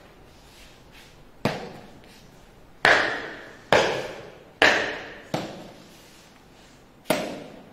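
Soldiers' boots stamping on a hard floor in drill movements: six sharp stamps at uneven intervals, each echoing briefly around the room.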